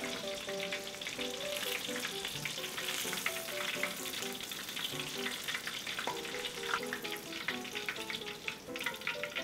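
Breaded salmon fillets deep-frying in oil at about 170 °C, a steady crackling sizzle with many small pops, in the last minute of a five-minute fry.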